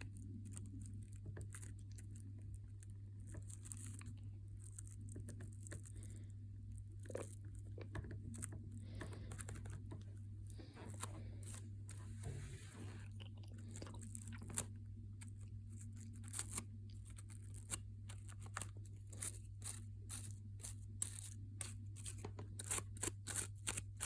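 Toothbrush bristles scrubbing and scratching at an iPad charger plug close to the microphone: irregular dry scratchy crackles that come thicker and louder in the last several seconds, over a low steady hum.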